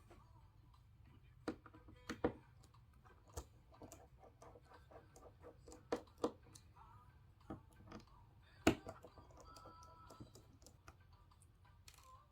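Small screws being taken out of a Samsung A50 phone's inner panel with a precision screwdriver: light, irregular clicks and taps of the driver bit and screws, about ten in all, the loudest about eight and a half seconds in.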